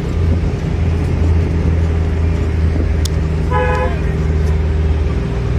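Steady low engine and road drone heard from inside a moving road vehicle, with one short vehicle horn toot about three and a half seconds in.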